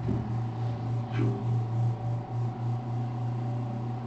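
Otis elevator car travelling between floors: a steady low hum with an uneven, surging rumble over it and a faint steady higher tone, on a bumpy ride.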